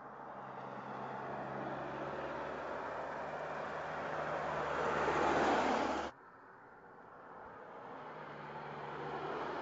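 Mercedes-Benz E-Class All-Terrain estate driving towards the microphone, its engine and tyre noise swelling as it comes close, then cutting off suddenly about six seconds in. After the cut, the car is heard approaching again from farther off, its sound slowly growing.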